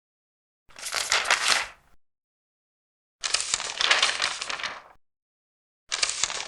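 Large paper pages being turned, three times, each turn a rustle of about a second and a half, with silence between them.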